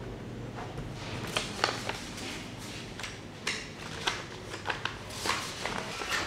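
Room ambience with scattered light clicks and knocks. A low hum stops about two seconds in.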